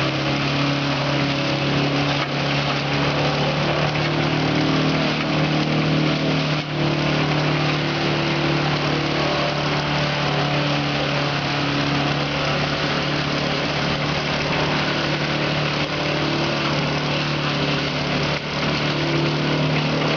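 A multipurpose shredder running steadily with a constant hum while green plant stalks are fed in and chopped.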